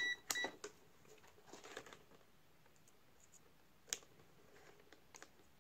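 Meterk MK01A digital multimeter beeping twice in quick succession as its rotary selector is turned. This is followed by faint rustling and clicks as the test leads are handled, with one sharp click about four seconds in.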